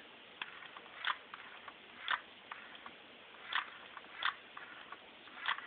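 Yamaha R6 individual throttle bodies and their linkage clicking and snapping as the gas pedal is worked: about five sharp clacks at irregular intervals of roughly a second, with fainter ticks between.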